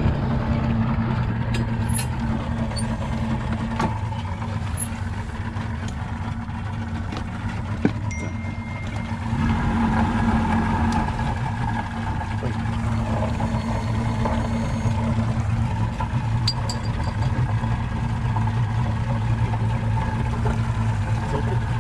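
Boat's outboard motor running steadily at low speed, picking up a little about nine and a half seconds in. A single sharp knock about eight seconds in.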